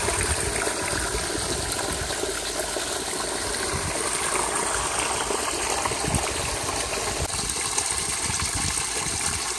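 Steady splashing and rushing of water churning the surface of a garden koi pond.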